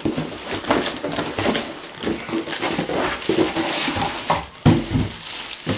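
Plastic packaging crinkling and a cardboard box rustling as the box is handled and plastic-wrapped items are pulled out of it, with a few knocks, the heaviest about five seconds in.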